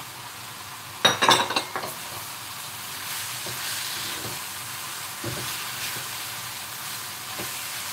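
Pak choi sizzling as it goes into a hot wok of stir-fry, with a short clatter about a second in. Then a wooden spatula stirs and scrapes in the wok over a steady sizzle.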